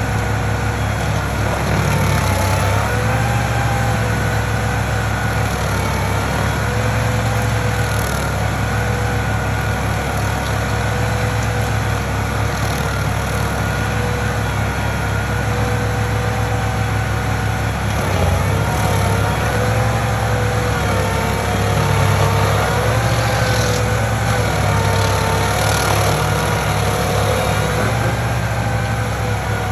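Engine of a stump-removal machine running steadily and loudly, its pitch dipping and rising again now and then.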